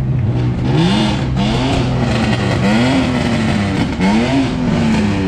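Sports car engine revving up and down, four swells about a second apart, over the steady hum of another engine idling.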